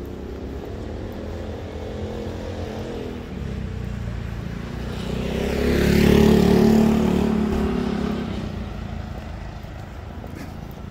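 A motor vehicle drives past close by. Its engine and tyre noise grow steadily to a peak about six seconds in, then fade away.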